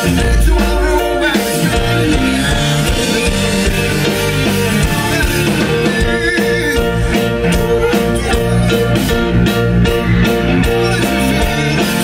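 Live rock band playing through the stage PA: electric guitar, electric bass, keyboard and drum kit together, with a deep bass note in the first second.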